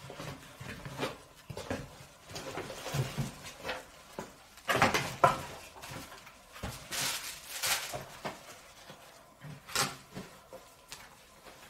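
Rustling of shoebox paper and cardboard with soft knocks and taps as leather shoes are lifted out of their boxes, with a few sharper swishes of paper about five seconds in and again a couple of seconds later.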